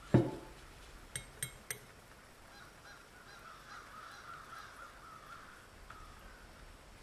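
A metal scale model and a round needle file being handled on a workbench: a thud just after the start, then three light metallic clicks in quick succession about a second later, followed by a faint wavering squeal lasting a few seconds.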